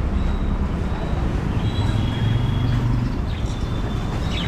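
Budgerigars giving short high whistled chirps, a couple of drawn-out notes and a sharper call near the end, over a steady low rumble.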